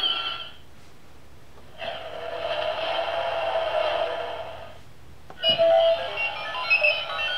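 Pre-recorded electronic music and sound-effect clips from a children's sound book's button panel, played through its small built-in speaker. One clip cuts off just after the start, another plays from about two seconds in to nearly five seconds, and a third, made of short separate tones, begins about five and a half seconds in.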